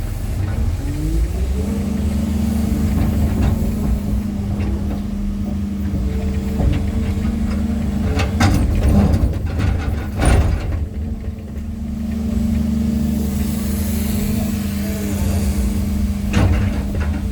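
Excavator's diesel engine revving up and then running steadily under hydraulic load. It eases off briefly about two-thirds through and picks up again. Several sharp knocks ring out in the second half.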